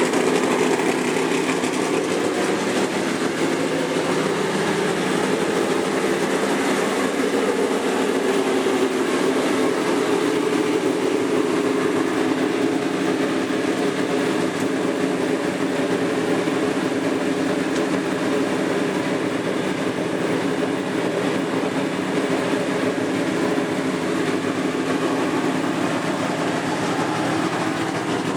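An engine running steadily: an even, unbroken drone that stays the same throughout.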